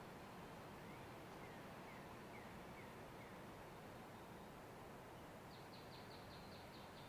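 Faint steady wind noise with small birds calling: a run of about six short falling notes about a second in, then a quick series of high chirps near the end.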